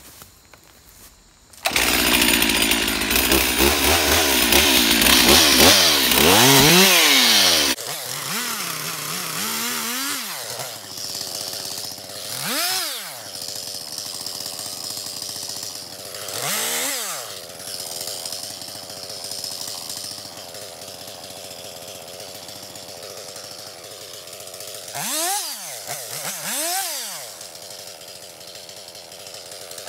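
Stihl MS362 two-stroke chainsaw comes in suddenly about two seconds in and runs loud at high revs for about six seconds. It then drops abruptly to a lower, steady idle, with five short throttle blips that rise and fall in pitch.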